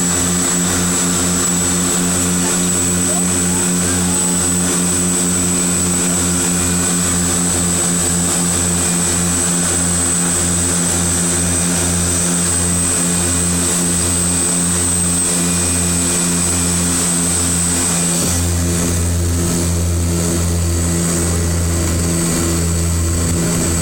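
Cockpit noise of a de Havilland Canada DHC-6 Twin Otter floatplane's twin turboprop engines on final approach for a water landing: a steady propeller drone with a high turbine whine over it. About 18 seconds in the low drone becomes steadier and fuller.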